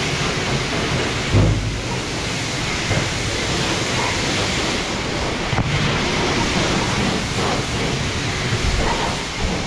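High-pressure wash lance spraying water onto a mountain bike: a steady hiss of spray, with a low thump about one and a half seconds in.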